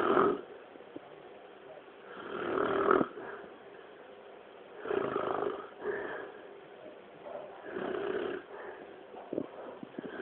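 A man snoring in his sleep: about four snores, one every two and a half to three seconds, each a swell that builds and breaks off, the loudest about three seconds in.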